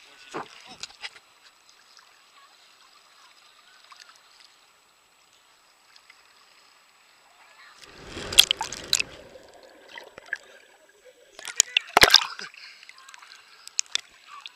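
Seawater sloshing and splashing around a camera bobbing at the surface. It is quiet for a few seconds, then there are two loud bouts of splashing about eight and twelve seconds in.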